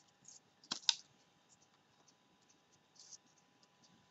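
Faint handling sounds of paper craft work on a wooden tabletop: two quick, sharp clicks a little under a second in, and a few light, scratchy paper rustles.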